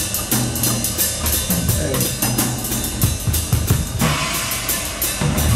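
Acoustic drum kit played live in a fast groove: an even run of cymbal strokes over snare and bass drum.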